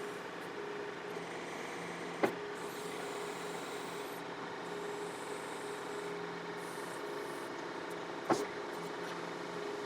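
John Deere 4052R compact tractor's diesel engine running steadily while it works the 485A backhoe, with two sharp knocks, one about two seconds in and a louder one near the end.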